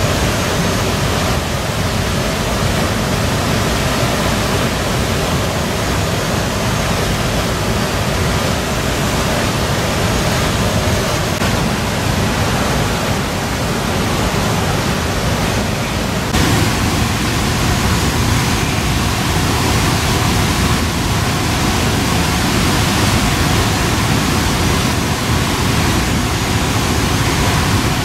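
Steady rushing noise, changing character abruptly about sixteen seconds in.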